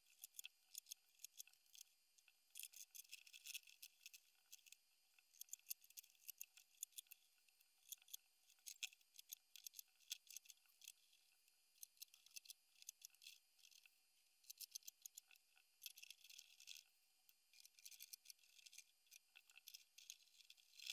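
Faint, thin clicking and rattling in irregular clusters: 3D-printed plastic clips and plywood panels being handled and fitted together.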